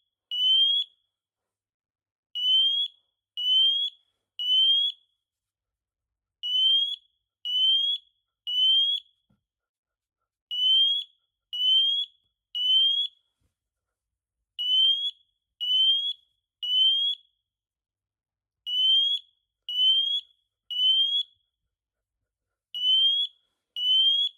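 FireAngel FA6620 optical smoke alarm sounding in its code-3 (temporal-three) pattern, set off by deodorant spray. It gives groups of three high beeps, each rising slightly in pitch, with a short pause between groups.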